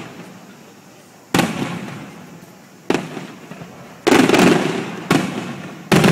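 Aerial firework shells bursting overhead: about five sharp booms a second or so apart, each dying away slowly, with a longer, louder burst about four seconds in.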